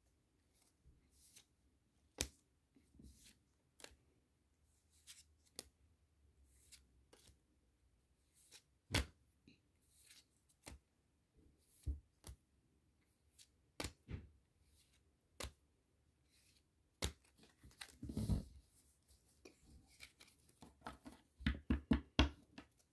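Pokémon trading cards being handled: sharp card snaps and flicks as cards are flipped through one by one, spaced about a second apart, with a longer rustle a little past the middle and a quick run of clicks near the end.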